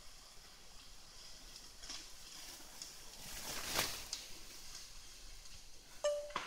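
Faint outdoor background hiss, with a short rushing noise that swells and fades about three to four seconds in. A brief high tone with a few clicks comes near the end.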